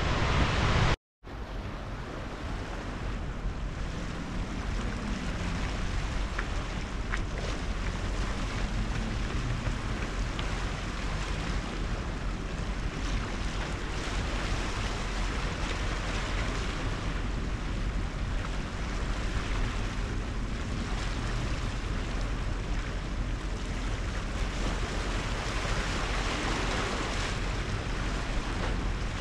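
Steady wash of sea water against breakwater rocks, with wind rumbling on the microphone. It opens with about a second of louder riding noise that cuts off abruptly.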